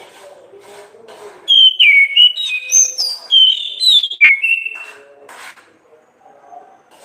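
Orange-headed thrush (anis kembang) singing one loud phrase of clear whistled notes that jump up and down in pitch, lasting about three seconds, with a sharp click near its end. Faint low sounds run underneath before and after.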